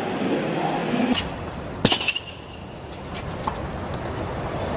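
Two sharp knocks of a tennis ball, the second louder, in the first two seconds, with a brief shoe squeak on the hard court right after, then the low hush of a stadium crowd.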